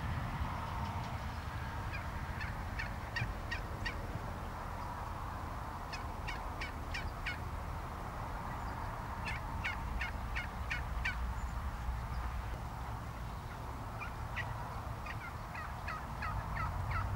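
Wild turkeys calling in four runs of short, evenly spaced notes, about four notes a second, over a steady low rumble.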